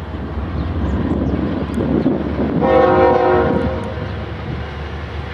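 Air horn of a diesel freight locomotive, a CSX GE ES44AH, sounding one blast about a second long in the middle, over the steady low rumble of the approaching locomotives.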